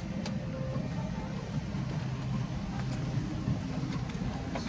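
Steady low hum of an airliner cabin, with a few faint clicks scattered through.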